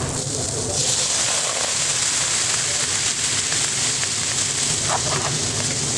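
Brussels sprouts and bacon frying in a hot pan, then about a second in liquid hits the pan and it breaks into a loud, steady sizzle as the liquid boils around the sprouts.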